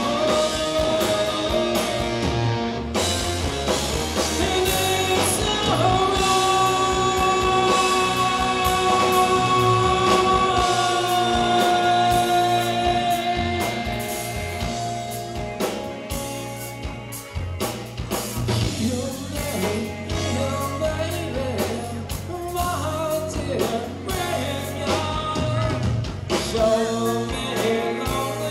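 Live rock band playing, with a singer holding long notes over electric guitars, bass and drums. About halfway through the music thins out and gets quieter.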